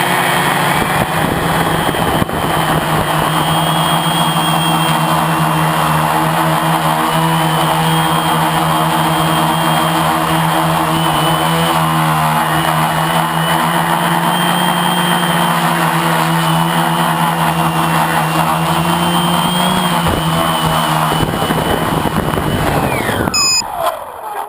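Lotus RC T380 quadcopter's electric motors and propellers buzzing steadily in flight, with a high whine above the drone. Near the end the pitch falls sharply and the sound dies away as the motors spin down.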